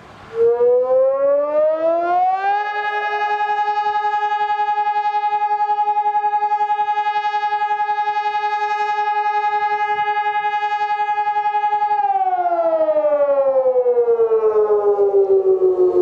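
SES 500 electronic fire siren on a mast sounding one blast of the fire alarm. The tone rises over about two seconds, holds steady for about ten, then slowly winds down near the end. A marked flutter runs through the tone.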